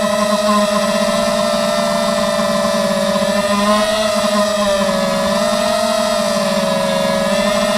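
Mini FPV quadcopter's electric motors and propellers whining steadily, the pitch rising and falling gently as the throttle changes.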